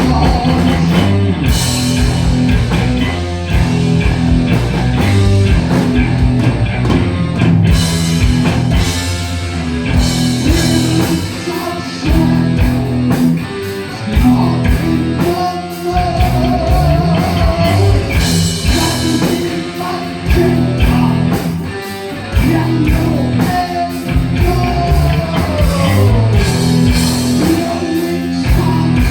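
Heavy metal band playing live: distorted electric guitars, bass and drum kit with crashing cymbals, and singing over them.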